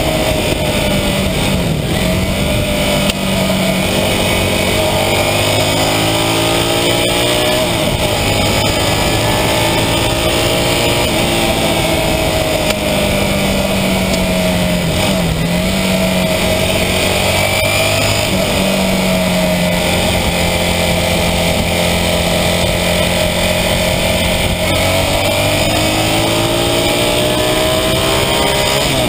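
1982 Honda CB400N Superdream's air-cooled parallel-twin engine running on the move, its pitch rising and falling several times as the rider opens and eases the throttle, over a steady rush of wind and road noise.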